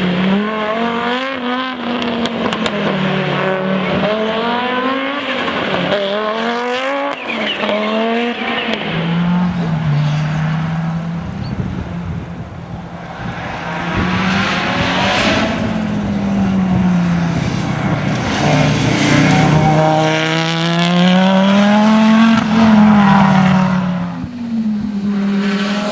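Audi Quattro S1 E2 Group B rally car's turbocharged five-cylinder engine being driven hard, its revs climbing and falling again and again. It dips a little about halfway through, then builds to its loudest near the end.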